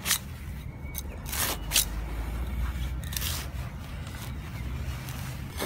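Grass turf being cut and torn up by a gloved hand with a small blade: several short rustling scrapes of blade and roots through the sod.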